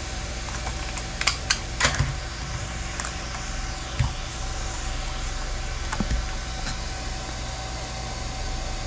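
Several sharp plastic clicks and knocks, a quick cluster about a second in and a few single ones later, from handling the spliced UTP network cable and plugging its RJ45 connector in, over a steady fan hum.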